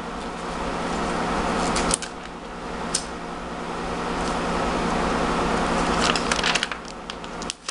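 Plastic packaging rustling and crinkling as a new laptop screen is taken out of it by hand, with a sharp click about two seconds in and another about a second later.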